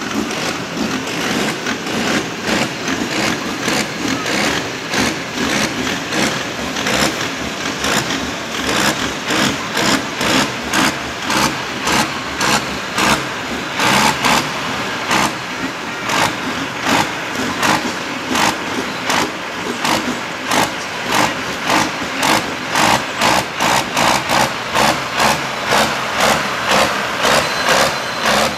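Diesel engine of a modified pulling tractor running with a rhythmic pulsing, about two pulses a second, more even and sharper in the second half.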